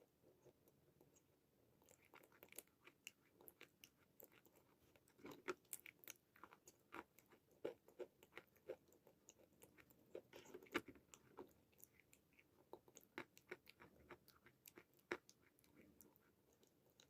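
Faint, close-miked crunching and chewing of dry white khadi chalk (a chalky edible clay): many irregular sharp, crisp crunches that grow frequent about two seconds in and thin out near the end.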